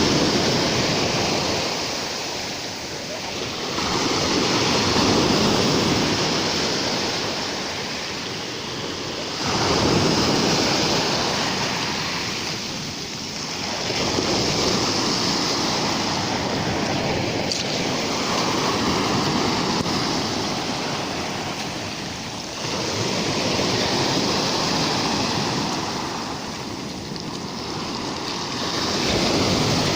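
Surf of a rough sea: waves breaking on the shore one after another, the rush swelling and fading every few seconds.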